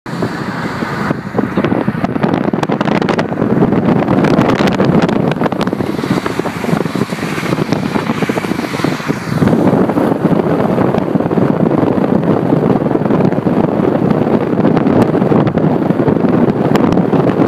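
Wind buffeting the microphone out of the open window of a moving car, over the car's road noise.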